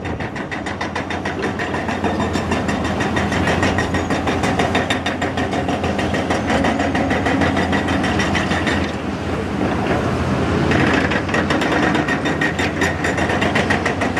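Hydraulic rock breaker on heavy construction machinery pounding rock in rapid, regular blows over the machine's running diesel engine, easing briefly about nine seconds in.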